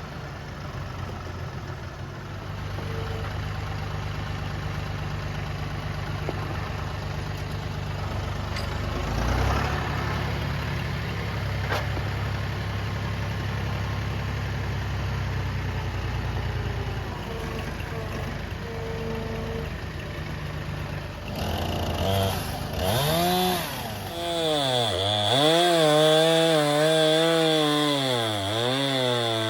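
An engine runs at a steady pitch, then about three-quarters of the way through a chainsaw starts revving up and down over and over.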